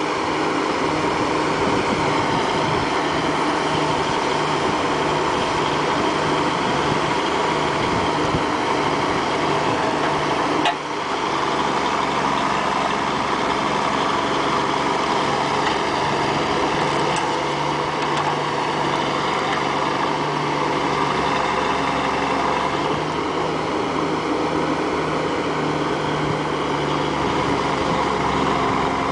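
Versatile 875 four-wheel-drive tractor's diesel engine running steadily under load as it tows a wrecked semi-truck through a field, with a brief break about ten seconds in.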